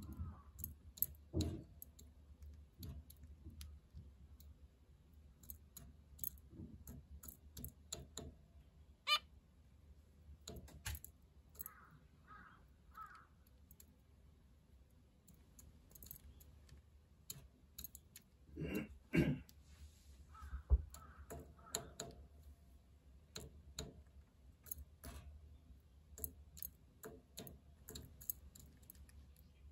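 Female zebra finch pecking and husking seeds in a plastic cup feeder: a long run of small, irregular clicks. A few short, soft calls come around the middle.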